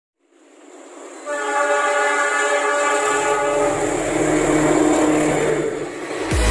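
Diesel locomotive sounding one long horn blast that fades in and holds for about two and a half seconds, followed by the low rumble of the engine and train.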